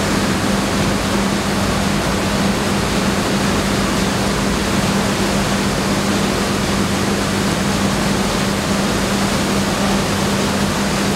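Rice mill machinery running: a loud, steady rushing noise with a constant low hum underneath.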